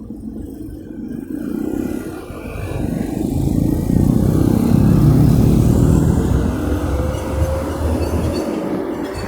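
Road traffic at a crossroad: vehicle engines and tyres, swelling loudest around the middle as a vehicle passes close. Near the end an engine note slowly rises in pitch.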